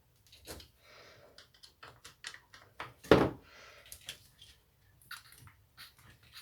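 Hand-tool and parts handling on a strimmer: scattered light clicks and taps with a couple of short scrapes, and one louder knock about three seconds in.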